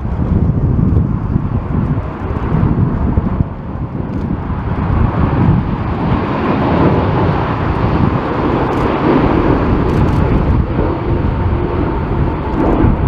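Jet airliner engines roaring as the aircraft passes, swelling to a peak in the middle and easing near the end, over strong wind buffeting the microphone.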